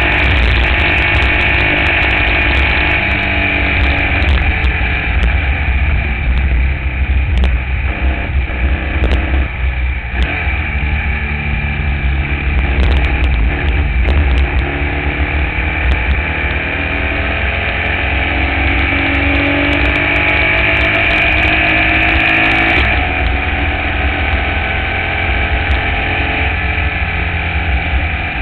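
Air-cooled Volkswagen flat-four engine of a Formula Vee race car running hard at racing speed, heard onboard, with a strong low rumble under it. The engine pitch rises and falls through the run, dipping briefly about ten seconds in.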